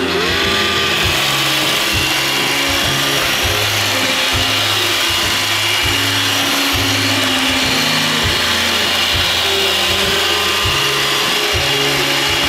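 iRobot Roomba 560 robot vacuum running a cleaning cycle: its vacuum fan and brush motors spin up with a rising whine at the start, then run on with a steady high whirring hiss.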